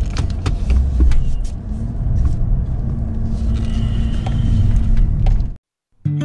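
Plow truck running, heard from inside the cab as it drives, a steady low rumble with scattered clicks and rattles. It cuts off abruptly about five and a half seconds in, and a strummed acoustic guitar starts just before the end.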